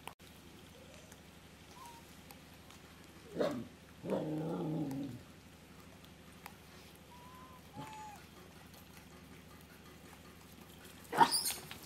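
Animal calls: a short call about three seconds in, a longer wavering call right after it, and a loud sharp call near the end, with a few faint short whistles between.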